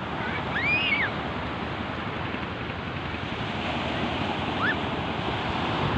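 Small waves breaking and washing up a sandy beach in a steady rush of surf, with wind on the microphone. A faint high call rises and falls about half a second in.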